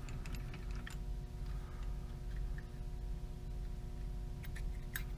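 Metal lathe running with a steady hum and whine, with scattered light clicks and taps from tools being handled at the machine.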